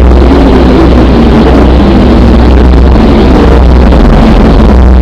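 Sonified spacecraft radio recording presented as the sound of Earth: a loud, steady low rumbling drone with wavering tones above it.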